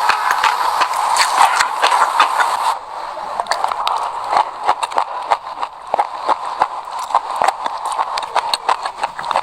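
Close-miked chewing of a mouthful of raw sesame seeds: dense, fast, irregular crunching clicks. About three seconds in the sound turns abruptly duller and a little quieter.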